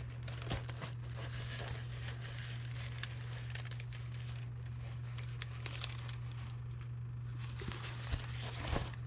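Light crinkling and rustling as a diamond painting canvas and its plastic packaging are handled, scattered small crackles over a steady low hum.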